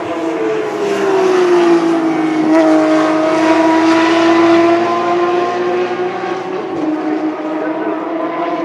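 Racing car engines running hard around the circuit. The main engine note falls in pitch over the first couple of seconds and then holds steady, and a second, higher engine note joins partway through.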